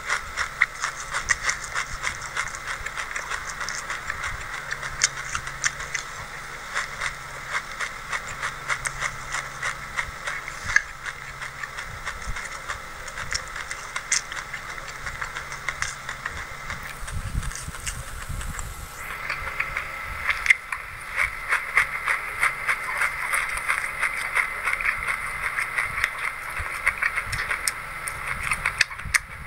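Close-miked chewing of a mouthful of raw white sesame seeds: a dense, continuous run of tiny crunches and crackles. It gets louder and denser a little past halfway.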